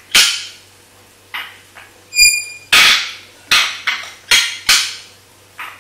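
African grey parrot making a run of sharp clicking pops, about seven in under six seconds, with a short high beep-like whistle about two seconds in.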